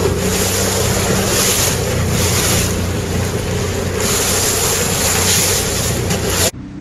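Wind buffeting the microphone and water rushing past the bow of a moving boat, over the low steady hum of the boat's motor. It cuts off suddenly near the end.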